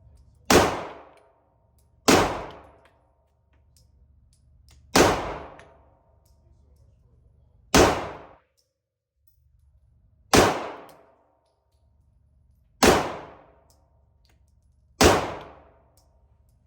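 Seven single shots from a Smith & Wesson Compact 9mm pistol, fired slowly at uneven intervals of about one and a half to three seconds. Each loud report is followed by a short ringing echo.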